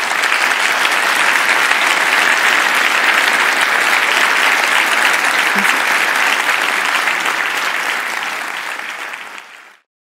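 Audience applauding steadily, fading away near the end and then cutting off.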